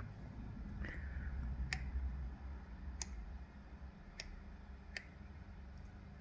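Lock pick and tension wrench working the pin stack of a Kale Kilit 164 BNE lock during single-pin picking: four sharp metallic clicks about a second apart, over a low handling rumble in the first couple of seconds.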